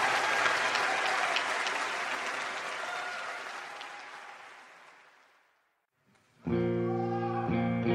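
Audience applauding, fading out over about five seconds to a brief silence. Then a guitar strikes a ringing chord, strummed again about a second later, as the next song begins.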